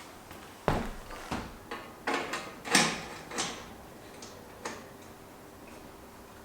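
A series of sharp knocks and clicks, about eight in four seconds, the loudest near the middle, some ringing briefly: parts and tools being handled during bicycle assembly.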